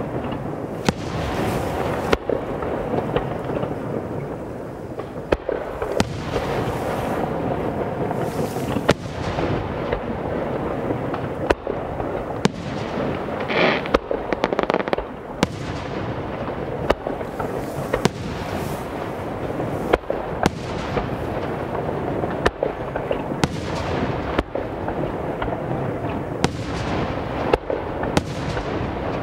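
Aerial firework shells bursting one after another, sharp bangs every second or two over a continuous rumble and crackle from the display.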